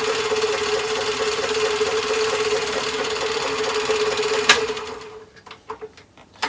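Myford ML7 lathe running with its gear train driving the leadscrew feed: a steady gear whine with a quick regular pulse, about five a second, and a little bit more noisy than the plain spindle. About four and a half seconds in a sharp click comes as it is switched off, and the lathe runs down within half a second, followed by a few light clicks.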